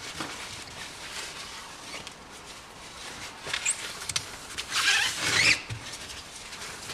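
Cloth rag wiping a motorcycle wheel rim clean with isopropyl alcohol: intermittent rubbing and light squeaks, with a few small clicks, and a louder stretch of rubbing about five seconds in.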